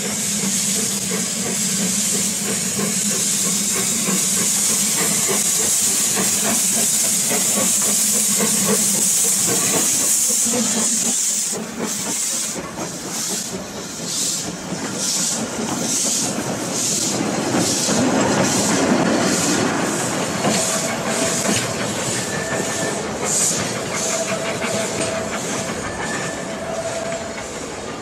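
Narrow-gauge Beyer Peacock 2-4-0T steam tank engine No 8 Fenella pulling away with its train: steam hisses loudly from the open cylinder drain cocks. About eleven seconds in the hiss drops away and the exhaust chuffs come through, about two a second, as the carriages roll past.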